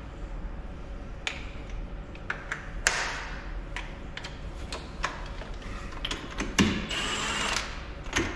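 Hand tools clicking and clinking on the metal front wheel hub of a Fendt 724 tractor: irregular sharp metallic taps, some ringing briefly, coming closer together about six seconds in.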